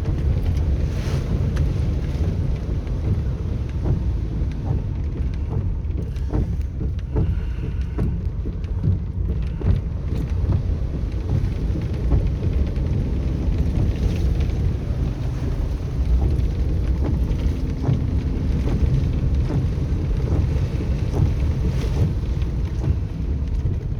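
Toyota Hilux 4x4 driving through floodwater: a steady low engine and road rumble with scattered short knocks and splashes.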